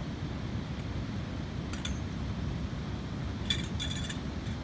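Sections of a DOD tarp pole clinking against each other as they are fitted together: a few light clinks about two seconds in and a quick cluster about three and a half seconds in, over a steady low rumble.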